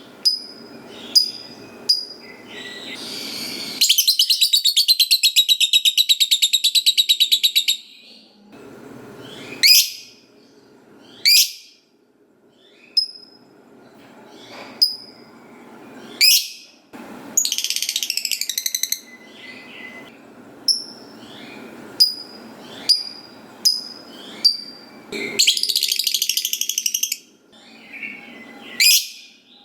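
Lovebird calling: sharp, piercing single chirps between long, rapid chattering trills (the 'ngekek panjang' fanciers prize). The first trill starts about four seconds in and lasts about four seconds, and two shorter ones follow later.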